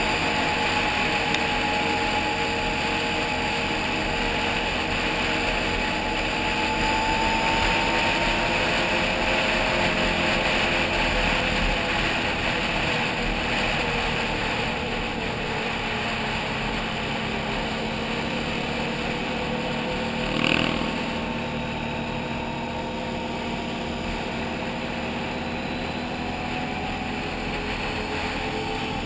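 Can-Am Outlander 800 ATV's V-twin engine running at cruising speed, its pitch drifting slowly up and down, over a steady rush of wind on the helmet-mounted microphone. A brief knock comes about twenty seconds in.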